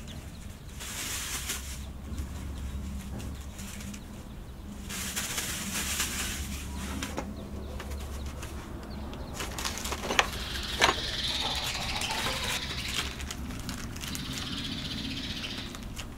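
Plastic bag and flour sack rustling and being shaken as they are handled, in several spells of crinkling noise. Two sharp knocks come a little under a second apart about ten seconds in.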